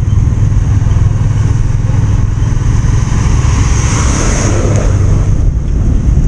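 Motorcycle on the move: a steady loud low rumble from the engine and road. About four seconds in, a rush of noise swells and fades as the bike passes a truck.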